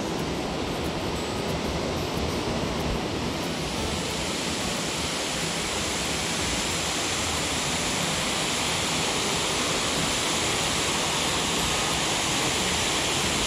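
Steady rush of a small waterfall spilling over a rock ledge into a pool, growing a little louder and brighter about four seconds in.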